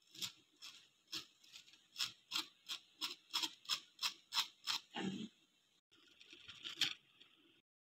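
Knife sawing through the crispy breaded crust of a fried chicken nugget, a sharp crunch on each stroke about three times a second. A dull knock comes about five seconds in, followed by more crackling with one loud crunch before the sound stops suddenly.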